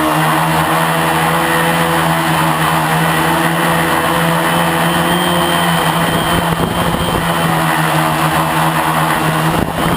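Lotusrc T380 quadcopter's electric motors and propellers running with a steady hum. From about six seconds in the sound grows rougher and more gusty.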